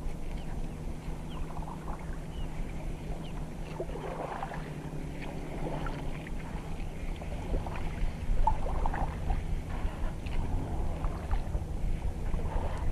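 Kayak being paddled: irregular paddle splashes and water dripping from the blades, over a steady low hum.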